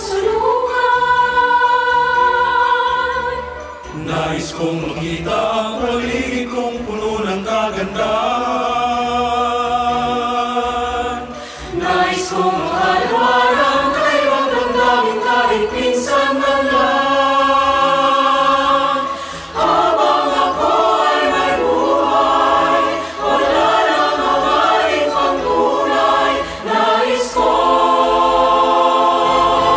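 Mixed choir singing in harmony, holding long, slow chords phrase by phrase with short breaths between phrases.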